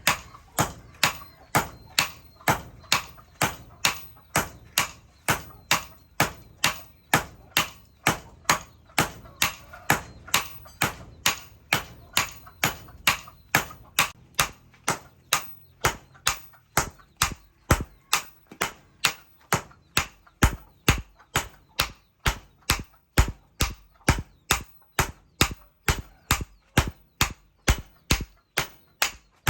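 Hand hammer striking hot leaf-spring steel on an anvil, an even rhythm of about two ringing blows a second, as the steel is forged into a chisel.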